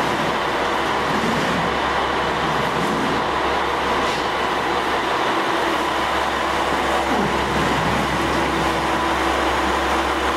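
JR West KiHa 47 diesel railcar idling at the platform: a steady engine rumble with a continuous low hum.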